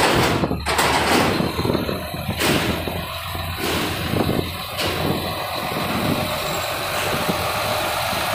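Heavy diesel tractor truck hauling a low-loader trailer with a large booster pump, setting off and driving slowly forward. Its engine runs loud and steady, with a sudden rise in loudness right at the start.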